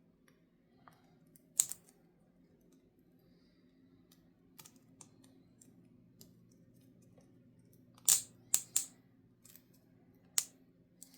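Hard plastic clicks from an anti-snoring mouthpiece being pushed and worked apart by hand. Scattered sharp clicks, with a quick run of three about three-quarters of the way in.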